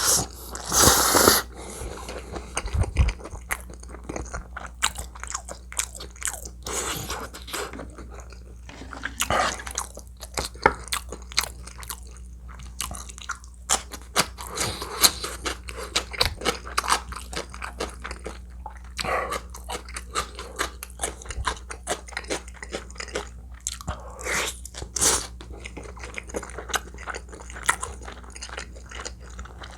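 Close-miked eating: a person biting and chewing food, with many small irregular crunching and wet clicking sounds and a louder, noisier burst about a second in.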